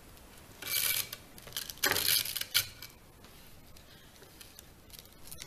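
Velcro arm strap being fed through the plastic armrest of a White's MX5 metal detector and pulled snug: two rough rustling scrapes, about a second and two seconds in, followed by a few light knocks against the plastic.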